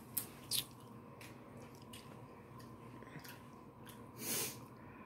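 Close-up chewing and biting into cream-cheese-stuffed sweet peppers, with a few short crisp bites. The loudest bite comes about four seconds in.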